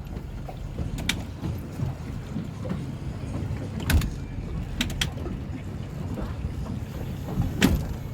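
Towboat idling on the water with a steady low rumble, broken by a few sharp knocks, the loudest near the end.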